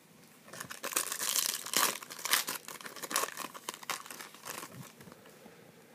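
Foil wrapper of a trading-card pack being torn open and crinkled, with a dense run of crackling from about half a second in to about four seconds in.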